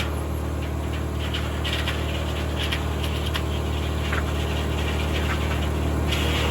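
A tractor-driven 1950 Corley circular sawmill running steadily with a low engine hum, with scattered light clicks and rattles from the mill. A higher-pitched hiss comes back in about six seconds in.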